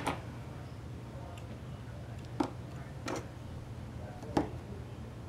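Small clicks and taps of watercolour paint tubes being picked up and set down on paper over a table, four spread out over a few seconds, with a low steady hum underneath.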